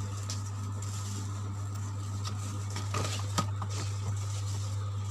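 Steady low hum with a few light clicks and taps about three seconds in, typical of food packets and containers being handled inside a fridge.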